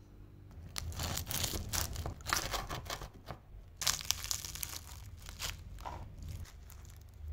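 Knife cutting through a baked puff pastry ring, the crisp flaky layers giving a dense run of sharp cracks and crackles, in two main spells about a second in and about four seconds in.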